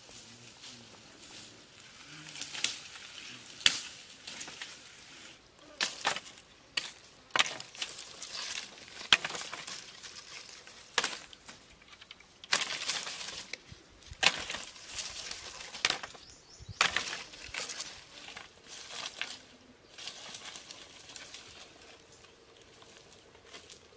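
Dry sticks snapping and cracking sharply at irregular intervals, with rustling of dry brush and leaves, as firewood is gathered by hand.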